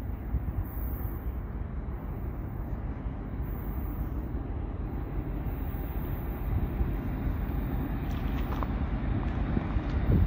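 Wind rumbling on the microphone over the low sound of a distant approaching freight train, slowly getting louder toward the end.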